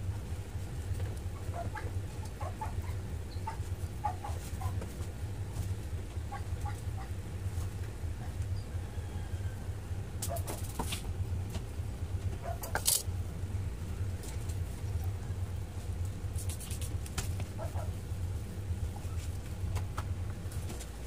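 A raw whole chicken being stuffed and handled in a plastic tub, with a few sharp clicks and knocks, the loudest about 13 seconds in, over a steady low hum. Faint short pitched calls come here and there in the first several seconds.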